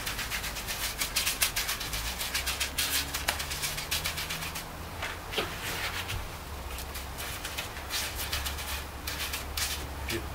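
Gloved hand rubbing and patting gritty pumice stucco onto a rough concrete dome: a fast, dense scratching, with a short let-up around the middle.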